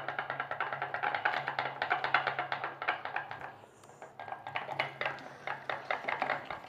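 A utensil rapidly stirring a thick glue and toothpaste slime mixture in a container, clicking and tapping against it many times a second over a low steady hum. The stirring eases briefly about halfway through, then picks up again.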